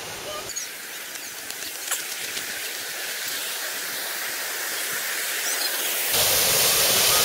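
Rushing water of a rocky stream and small waterfall: a steady hiss that grows louder, turning fuller and louder about six seconds in.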